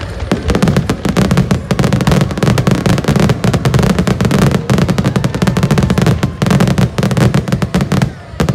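Fireworks barrage: a dense run of launches, bangs and crackles, many a second, that thins out shortly before the end.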